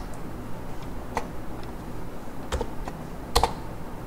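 Computer keyboard keystrokes: a few separate key presses spread unevenly rather than steady typing, the loudest pair of clicks about three and a half seconds in.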